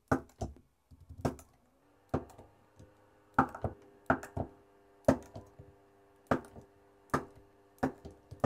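Battery spot welder firing one weld pulse after another, welding nickel strip onto Samsung 30Q 18650 cells. The welds are a dozen short, sharp snaps, about one a second, some in quick pairs. A faint steady hum runs under them from about two seconds in.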